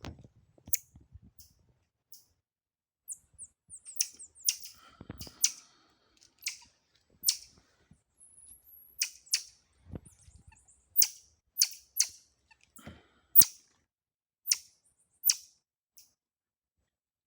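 A pet monkey biting and crunching something hard: sharp, irregular cracks, sometimes several close together. There are a couple of faint high squeaks near the start and in the middle.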